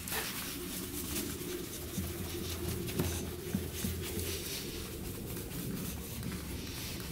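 Cloth rag rubbing over a plastic motorcycle fuel tank in steady back-and-forth wiping strokes, cleaning the tank with brake cleaner.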